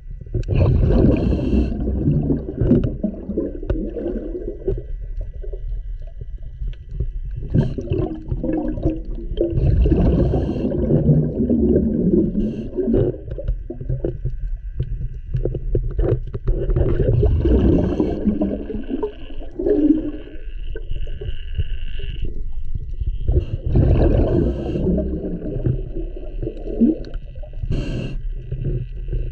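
Scuba regulator breathing heard underwater: bubbly, rumbling exhalations every several seconds with hissing inhalations between them. A faint steady high tone runs underneath.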